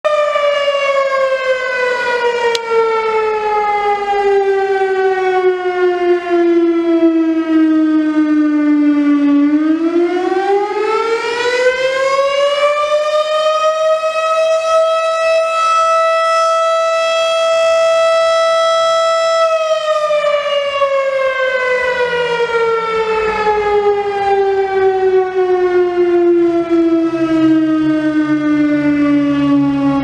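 Electromechanical tornado siren sounding a fire department call-out. Its wail winds slowly down, spins back up to its top pitch about ten seconds in, holds there for several seconds, then winds down again.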